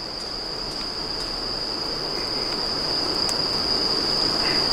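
Crickets trilling in one steady, unbroken high tone, over a low hiss with a few faint crackles from a small wood fire in a stainless steel fire box.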